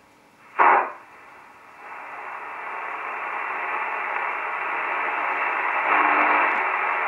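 1930 Stern & Stern Conserton V33 four-tube radio being switched on: a loud crackling pop from its speaker about half a second in, then static hiss that grows steadily louder.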